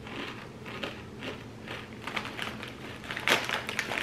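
Potato chips crunching as they are chewed, with the chip bag crinkling as a chip is taken out. The crackles grow denser in the second half, the sharpest a little past three seconds in.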